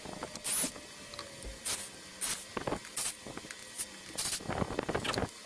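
Black & Decker corded drill run in short bursts of about half a second into a wooden board, several times over, with clicks and knocks between the bursts.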